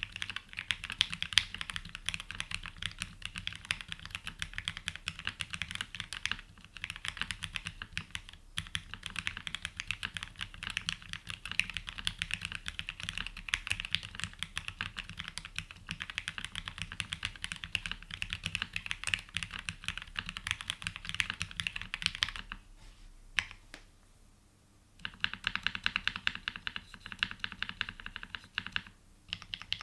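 Fast, continuous typing on a Haven 65 custom mechanical keyboard with lubed and filmed Gateron Oil King linear switches, an aluminium plate and GMK keycaps. The typing stops for about two and a half seconds near the end, with a couple of single keystrokes, then starts again.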